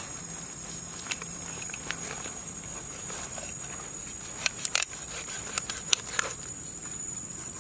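A cleaver cutting a salmon fillet away from the backbone, with a few sharp clicks as the blade catches on the bones, most of them in the second half.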